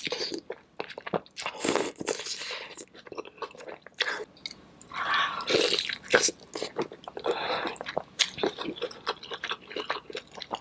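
Close-miked eating of seafood boil: irregular biting, crunching and wet chewing, with sharp clicks and smacks.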